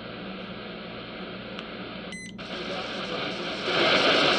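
XHDATA D-109 shortwave receiver's loudspeaker playing a weak shortwave broadcast buried in hiss and static. The audio breaks off briefly about two seconds in as the radio steps to the next scanned frequency, then comes back with louder noise and a stronger signal near the end.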